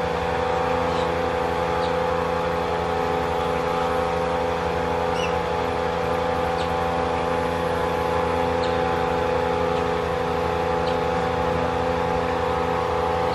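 A steady mechanical drone that holds one pitch throughout, engine- or motor-like, with a few faint short chirps over it now and then.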